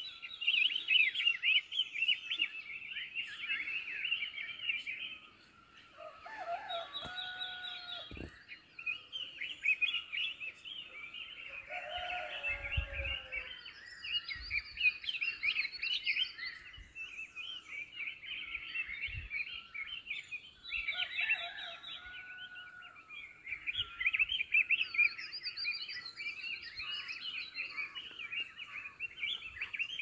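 A chorus of many small forest birds chirping and twittering without a break, quick high notes overlapping, with a few lower calls now and then.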